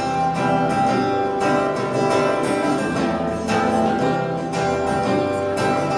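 Instrumental accompaniment of a ballad between sung lines, led by guitar with regular strummed or plucked chords and no voice.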